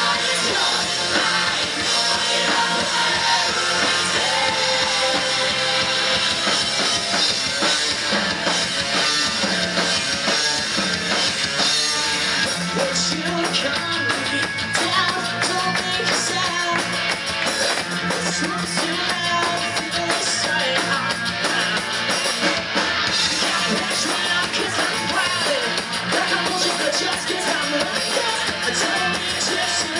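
Live rock band playing: a singer over electric guitars and a drum kit, loud and continuous.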